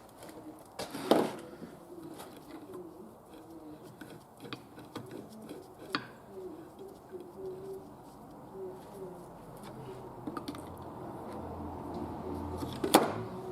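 Low bird calls repeated in short wavering notes, with a few sharp knocks, the loudest about a second in and near the end.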